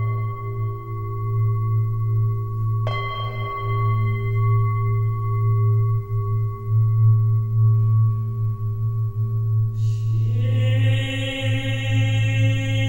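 Slow, meditative background music: a low steady drone under long ringing tones that are struck afresh about three seconds in, with chanting voices coming in near the end.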